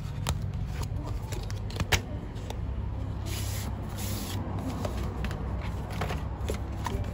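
Cardboard watch-band box being opened by hand: the paper sleeve slides off the tray with light clicks and a rustling slide about three seconds in, over a steady low hum.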